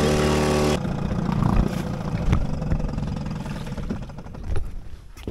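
Small boat outboard motor running steadily, cut off abruptly under a second in. Then uneven wind rumble on the microphone with scattered crunches on a stony beach, fading toward the end.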